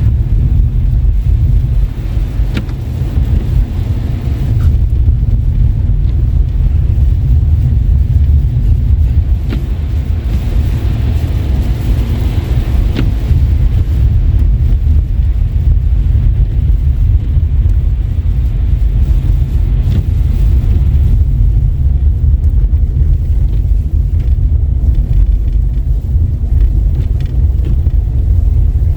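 Steady, deep rumble of a car driving on wet, slushy roads, with a few faint ticks and a brief swell of hiss around the middle.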